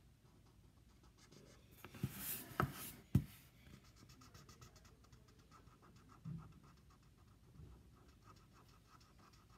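Felt-tip marker scrubbing on paper in quick repeated strokes, colouring in. A few louder scrapes and one sharp knock on the table come about two to three seconds in.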